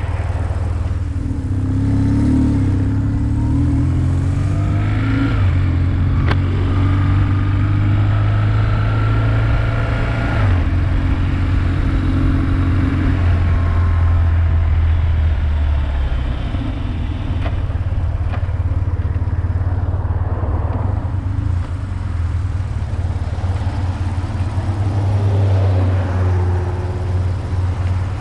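BMW motorcycle engine pulling away and accelerating, its pitch climbing and stepping down at gear changes about five and ten seconds in. It then runs steadily and eases off, with a short rise again near the end.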